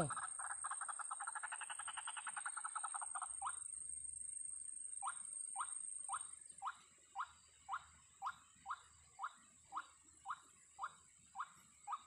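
White-breasted waterhen calls: a fast croaking chatter for about three and a half seconds, then short single croaks repeated about twice a second.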